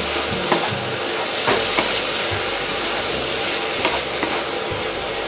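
Masala-coated soya chunks sizzling as they dry-roast in a hot pan, stirred with a wooden spatula that clicks and scrapes against the pan now and then.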